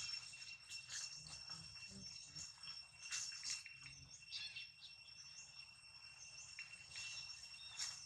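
Faint steady high-pitched insect drone, with scattered short chirps and clicks.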